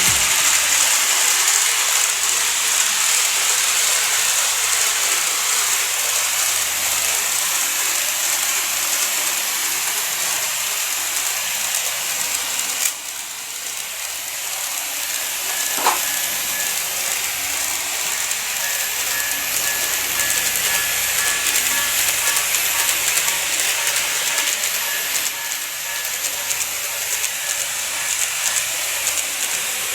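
Model train running on its track: a steady hiss of wheels and motor, with a brief dip about thirteen seconds in and a sharp click a few seconds later.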